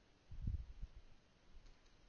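Faint clicks of keys being typed on a computer keyboard, after a dull low thump about half a second in.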